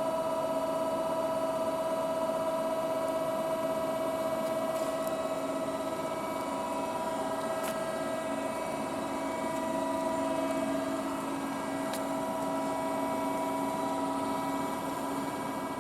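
Amada RGM2 hydraulic press brake running at rest, its pump and motor giving a steady hum with several fixed tones. A few faint ticks come through now and then.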